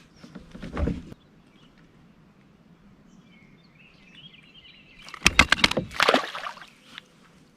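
A large bass thrashing on the kayak while being measured: a few soft knocks, then about five seconds in a loud, quick flurry of knocks and rattles with a splashing rush as the fish flops free. A bird calls faintly in between.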